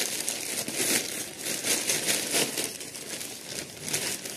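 Thin clear plastic packaging bags crinkling and rustling as they are handled and pulled apart, an uneven run of crackles with louder spikes.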